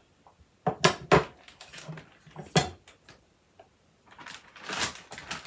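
A kitchen knife knocking sharply on a wooden cutting board a few times while cooked roast beef is split, then a brief plastic-bag rustle near the end.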